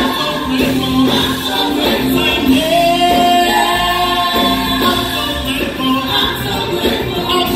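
A gospel vocal group singing into handheld microphones, male and female voices together, in held, gliding notes.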